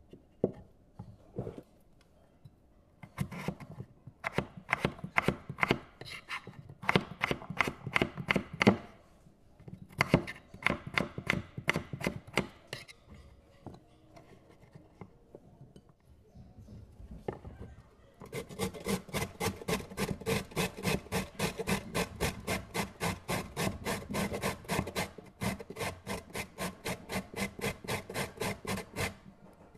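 A knife cutting potatoes on a wooden chopping board in quick irregular runs of strokes. From about two-thirds of the way in, a carrot is grated on a metal box grater standing on the board, in steady, even strokes about three a second.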